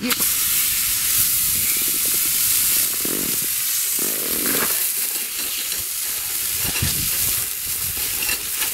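A large raw hamburger patty, about 300 g, sizzling in a hot cast-iron skillet: the sizzle starts suddenly as the meat goes into the pan and then carries on as a loud, steady frying hiss.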